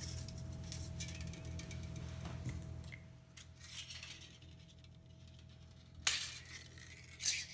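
Craft scissors snipping across a thin aluminum flashing strip: two short, sharp metallic cuts near the end, over a faint steady hum.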